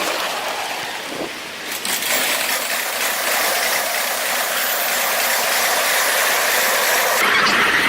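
Train running on the rails with a steady metallic rattle and clatter from the wheels and cars. A high wheel squeal begins to rise near the end.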